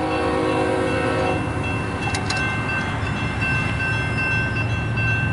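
Locomotive air horn sounding and cutting off about a second and a half in, over the steady ringing of a grade-crossing bell as the crossing gates come down. A low rumble continues beneath, with a few clicks about two seconds in.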